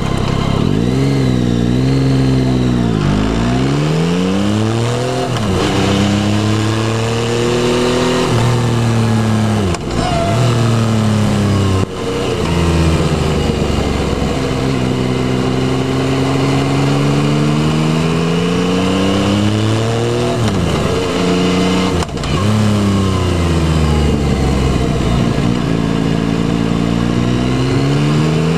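Yamaha Tracer 9's three-cylinder engine pulling hard, its pitch climbing as the bike accelerates and dropping sharply at each gear change, then winding up again.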